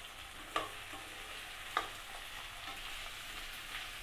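Chopped green capsicum and onion sizzling in hot rice bran oil in a metal kadai while being stirred, with the spatula clicking against the pan twice.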